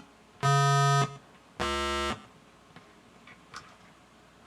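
Homemade CMOS keyboard synthesizer sounding a buzzy square-wave note twice, each about half a second long, the second lower in pitch as the frequency divider steps down an octave. A few faint clicks follow.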